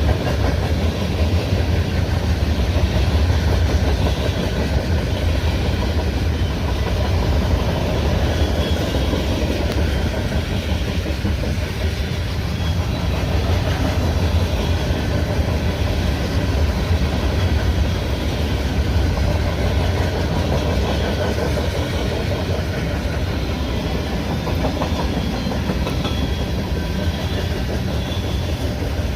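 Freight train cars rolling past on the rails: a steady, low rumble that does not let up.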